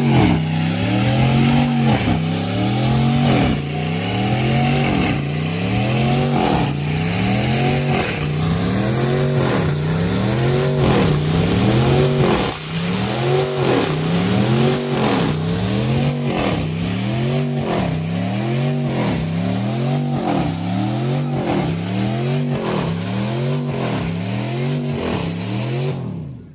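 Ram 1500's Hemi V8 revving hard through a burnout with its rear tyres spinning in smoke. The engine pitch climbs and falls again in an even rhythm, about once every second and a quarter, over and over. Near the end the sound drops away sharply.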